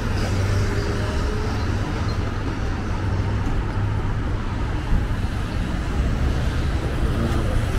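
Steady road traffic noise of a city street, with a constant low rumble.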